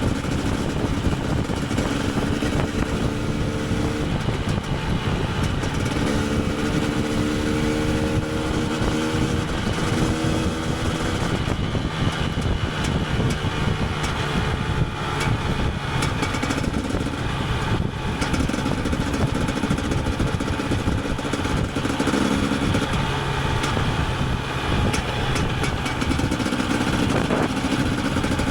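KTM 250 EXC TPI single-cylinder two-stroke engine running as the supermoto is ridden, its note rising and falling in pitch with the throttle.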